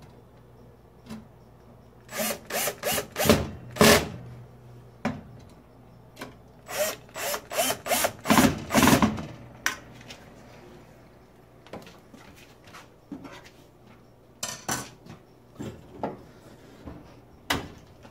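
Screws being tightened into a gas range's control panel: two runs of short, loud bursts about three a second, then a few scattered clicks.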